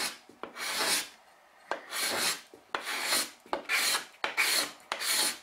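Steel card scraper pushed in about six short strokes across a veneered oak panel. It is removing dried glue squeeze-out and levelling the two veneer leaves at their joint.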